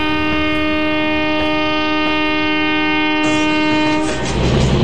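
Indian Railways locomotive horn sounding one long, steady blast, the long note of the two-short-one-long signal that means a passenger has pulled the alarm chain or the guard has applied the vacuum brake. The horn cuts off about four seconds in, leaving the rumble of the running train.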